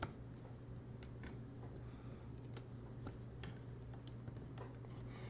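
Faint, irregular small clicks and taps of fingers working at the metal parts of a transistor radio's chassis, about one or two a second, over a low steady hum.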